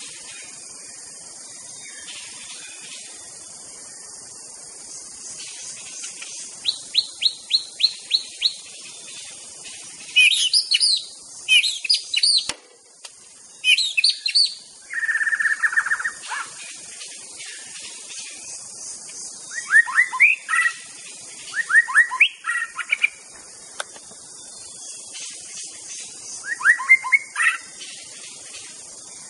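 White-rumped shama (murai batu) singing in separate phrases: a quick run of about eight rising notes, loud whistled phrases, a held whistle, and clusters of quick notes, over a steady high hiss.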